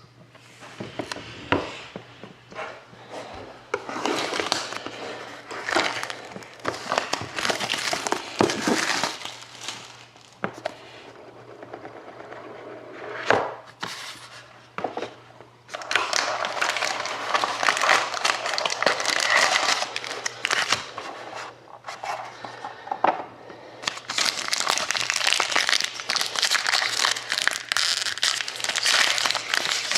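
Plastic wrapping crinkling and tearing in irregular bouts as a sealed box of hockey trading cards and its pack are opened, with a sharp snap about halfway through. The crinkling becomes near-continuous in the last half. A faint steady low hum runs underneath.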